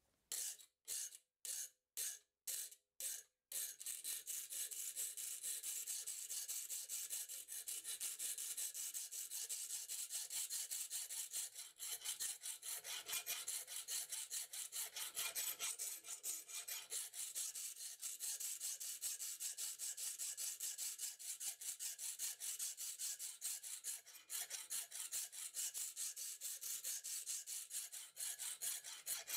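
Hand file scraping across a steel reciprocating-saw blade clamped in a bench vise, shaping the knife blank. A few slow, separate strokes open, then it settles into quick, steady back-and-forth filing.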